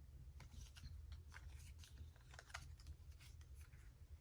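Near silence: room tone with a low hum and faint, irregular light clicks and rustles of small objects being handled.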